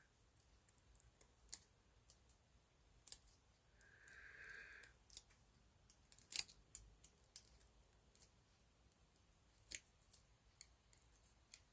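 Faint, scattered small clicks and taps of a wire and screwdriver being worked onto an old light switch's terminal, with a short scrape about four seconds in.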